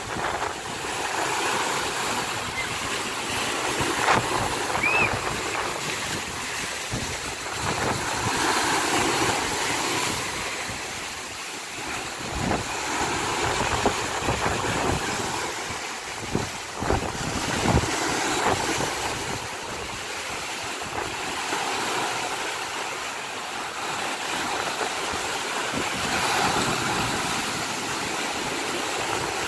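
Choppy sea waves breaking and washing over a low concrete seawall and rocks, a steady rushing surf with wind buffeting the microphone. A few sudden thumps stand out in the middle.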